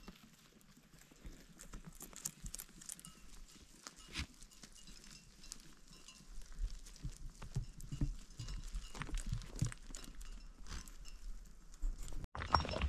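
Livestock moving about: irregular clicks and knocks of hooves, with a few low thumps, coming more often after a few seconds.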